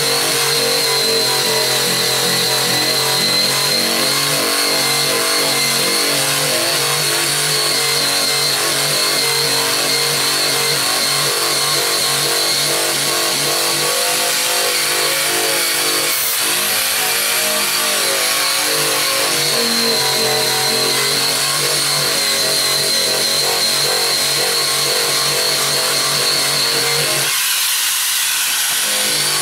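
Eastwood Contour SCT, a corded electric surface conditioning tool fitted with an abrasive wheel, running steadily as it strips paint off a car's steel trunk lid: a constant motor whine with a high hiss. Near the end the deeper part of the sound drops out for about two seconds.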